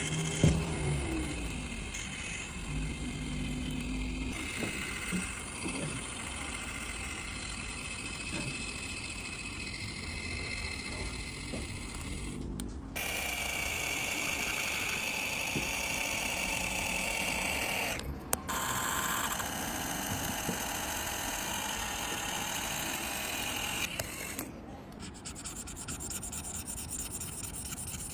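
Small hand tools scraping and rubbing on a phone's parts, with occasional light clicks, over a steady hiss. The background changes abruptly a few times.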